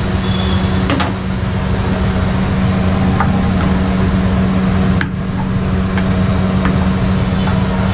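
Steady, loud machine drone with a low hum, with one sharp click about a second in and a few fainter knocks later.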